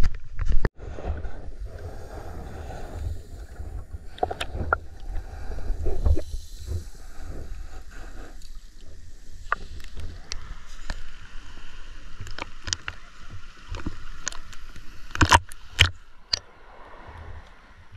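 Sea water sloshing and splashing around a swimmer, over a low rumble in the first half, with scattered sharp splashes and knocks. The loudest come in a short cluster about fifteen seconds in.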